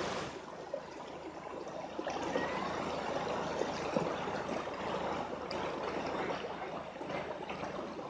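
Shallow stream running and trickling over river rocks, heard close to the water surface, with a few light knocks.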